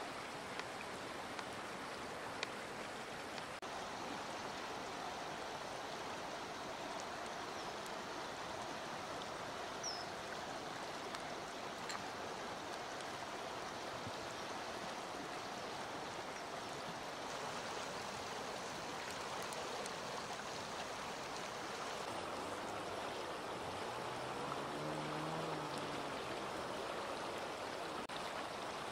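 Shallow river flowing steadily over stones, a constant rushing of water.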